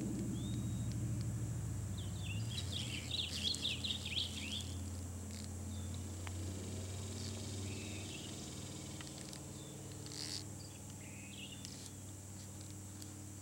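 Outdoor riverside ambience: a steady high insect drone with birds chirping, a busy run of calls about three seconds in and shorter calls later. Underneath is a low engine hum that fades away.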